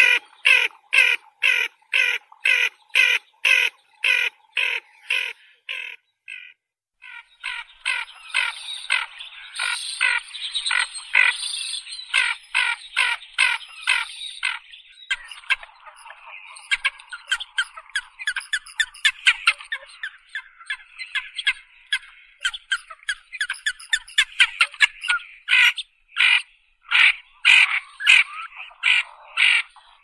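Ferruginous ducks (white-eyed pochards) calling. Short calls repeat about twice a second, then stop briefly about six seconds in. A denser stretch of overlapping calls follows, and spaced, rhythmic calls return near the end.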